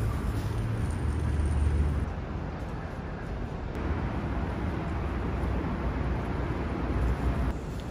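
Street traffic noise: a steady low rumble of vehicles. It grows fuller about four seconds in and drops back just before the end.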